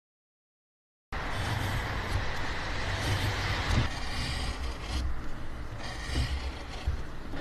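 Silence for about a second, then a wood chisel pushed by hand paring a marked notch out of a wooden block: uneven scraping and crunching over a low rumble.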